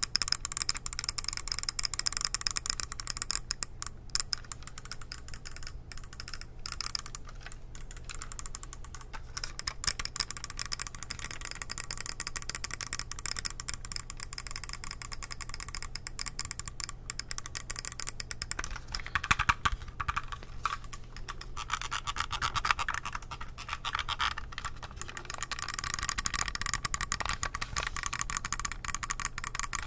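Rapid, dense clicking of an Acer computer mouse's plastic buttons, continuous throughout.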